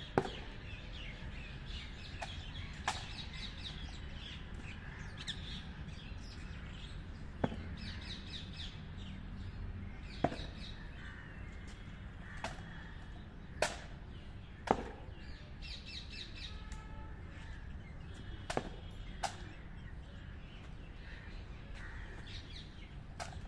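Sharp single cracks every few seconds, about ten in all, from rifle drill: drill boots stamping on the road and hands slapping the rifle. Birds chirp and crows caw throughout.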